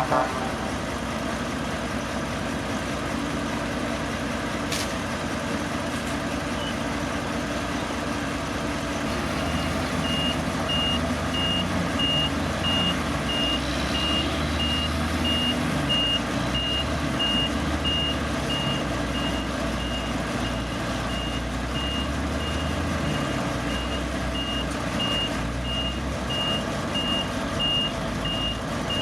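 Heavy diesel earthmoving machinery running steadily. About a third of the way in, a reversing alarm starts, repeating one high beep at an even pace as a machine backs up.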